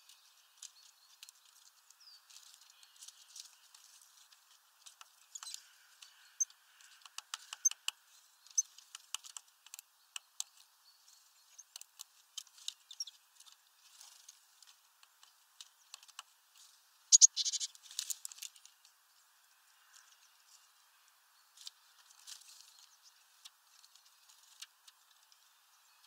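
Birds feeding at a hanging mesh bag of peanuts: irregular light tapping and clicking of beaks pecking at the nuts and feet on the metal bar. A few brief high chirps come early on, and a louder flurry of taps about 17 seconds in.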